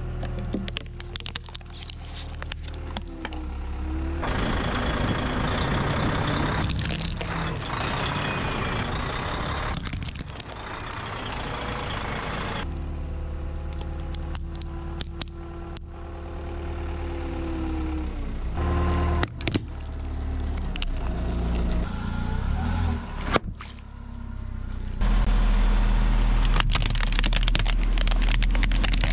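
Vehicle engines running while heavy tyres roll slowly over plastic objects, crushing them, with sharp plastic cracks and crunches. The hum changes abruptly several times, and the cracking is busiest near the end.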